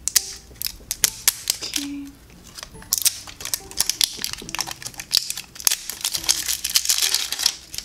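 Plastic wrapping of an LOL Surprise ball crinkling and tearing as it is peeled off by hand: a rapid run of sharp crackles and clicks, thicker and denser from about three seconds in.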